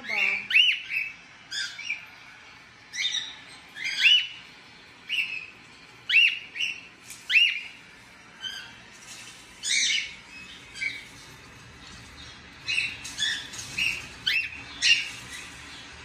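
Cockatiels calling over and over: short whistled chirps that rise and fall, about one a second, with harsher, raspier squawks in the second half.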